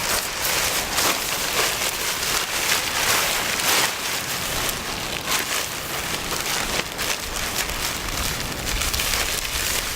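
A silnylon tarp rustling and crackling as it is handled and spread out on the ground, a dense, continuous crinkle of thin coated nylon.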